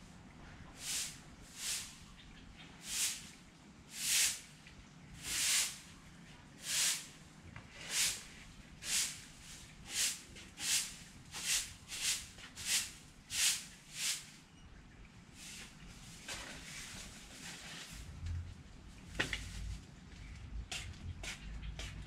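An animal calling in a series of hissy, rasping pulses, about one a second at first and speeding up to nearly two a second, then trailing off into weaker, irregular ones. A low rumble comes in near the end.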